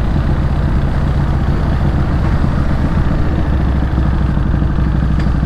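Harley-Davidson Night Rod Special's liquid-cooled V-twin running at a steady speed, a deep even engine note over a constant rush of noise; the lowest part of the note gets fuller about three seconds in.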